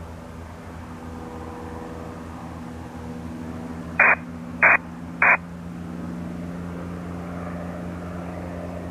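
Piston aircraft engine running with a steady low drone. About four to five seconds in come three short, loud bursts of radio squelch noise, less than a second apart.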